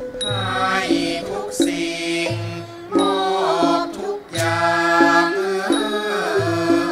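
Thai classical song of royal praise sung by women, the melody sliding and wavering between notes in the ornamented Thai vocal style. A Thai classical ensemble accompanies them with held, stepping low notes and a few sharp strikes.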